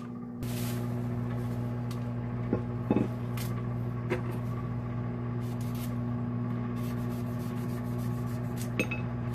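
Microwave oven running with a steady low hum that switches on about half a second in. A few light clinks of metal utensils against a stainless steel cup are heard over it.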